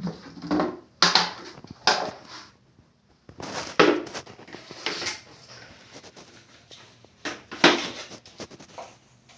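A series of irregular knocks and scrapes of hard material, roughly one a second, some sharper and louder than others.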